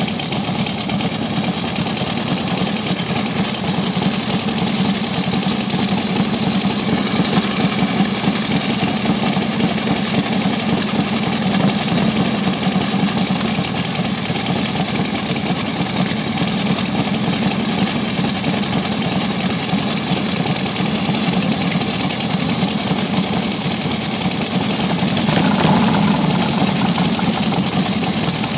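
Harley-Davidson chopper's V-twin engine running steadily, a little louder for a moment near the end.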